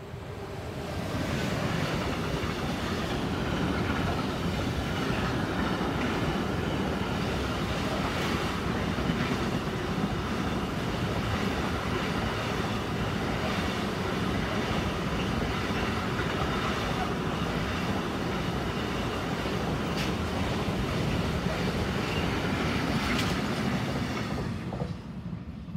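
Container freight train hauled by a Siemens Vectron electric locomotive passing close by. The wagons' wheels rumble steadily on the rails, with a few sharp clacks. The sound builds over the first couple of seconds and drops away near the end as the last wagon passes.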